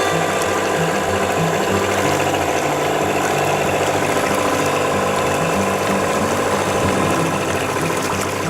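Background music: a bass line moving in steps under steady tones, with a fast ticking rhythm running through it.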